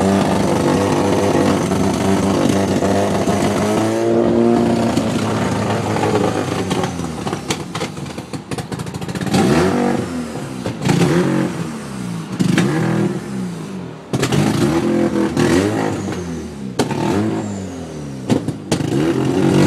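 Mazda RX-7 FC's 13B rotary engine running and being revved over and over, its pitch climbing and falling back every second or two, with a few sharp clicks between the revs.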